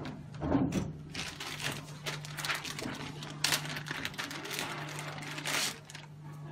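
Hands handling and plugging in a computer keyboard's cable: irregular rustles, scrapes and small clicks, over a steady low hum.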